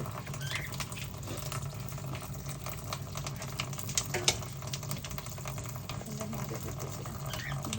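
Kitchen tap running into a sink, with scattered small clicks and two sharp clicks about four seconds in.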